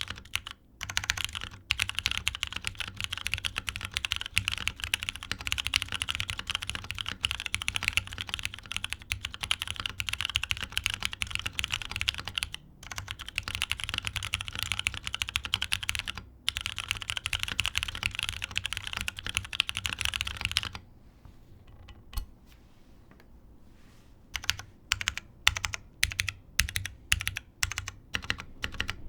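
Typing on a Float65 mechanical keyboard with lubed Cherry MX Brown switches, an FR4 plate and GMK keycaps: fast, continuous keystrokes for about twenty seconds, a short pause, then slower separate key presses about two a second.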